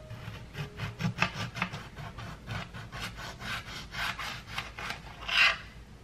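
Kitchen knife sawing through a lime on a plastic tray: a quick run of short cutting strokes as the blade works through rind and flesh, with one longer, louder stroke near the end.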